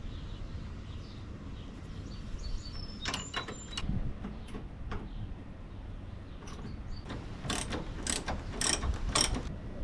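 Sharp metallic clicks from hand-tool work on the car: a short cluster about three seconds in, then four evenly spaced clicks about half a second apart near the end.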